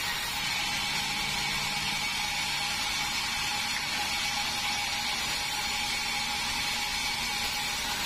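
Band sawmill running steadily as its blade rips a red meranti board lengthwise, a constant high whine over a hiss of sawing.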